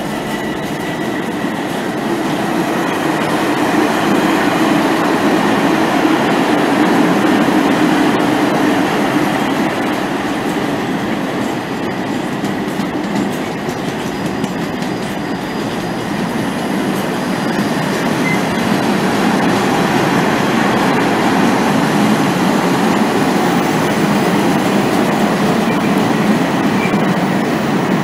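Long rake of covered freight wagons rolling through at speed behind a Class 66 diesel locomotive: a loud, steady rumble and clatter of steel wheels on the rails.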